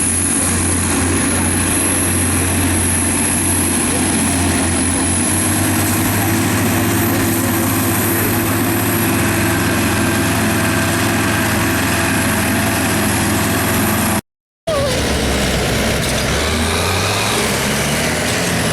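Tractor engine running steadily. After a short break in the sound about fourteen seconds in, its pitch rises and falls as the engine speed changes.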